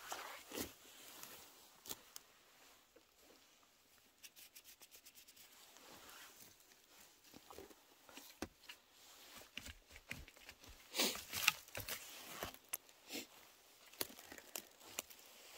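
Dry forest-floor litter rustling and crackling as it is trodden and handled, with scattered small snaps and scrapes. A brief run of rapid, even ticks comes about four seconds in, and there is a louder flurry of rustling near the end.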